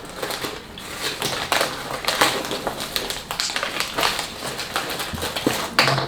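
Chewing a chamoy pickle close to the microphone: a steady, irregular run of crunches.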